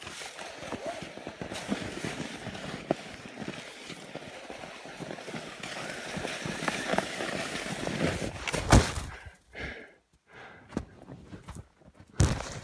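Skis shuffling and crunching through snow, with hard breathing, then a loud thump nearly nine seconds in and another near the end.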